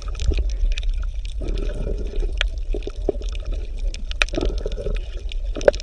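Water lapping and sloshing, with many small irregular splashes and clicks, over a steady low hum.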